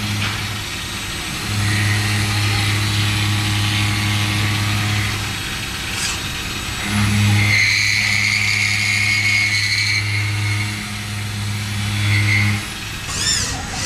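WFL M60 CNC mill-turn machine cutting a steel crankshaft pin: a steady low machine hum that runs in two long stretches, cutting out for about a second and a half between them, with a high cutting whine over the second stretch.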